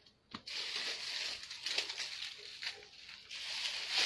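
Dry leaves crunching and rustling underfoot: a sharp knock about a third of a second in, then continuous irregular crackling with a brief lull about three seconds in.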